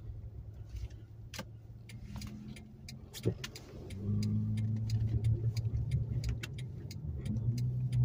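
Toyota Camry heard from inside the cabin while driving in snow: a steady low engine and road hum that swells about four seconds in as the car speeds up, with scattered light ticks throughout.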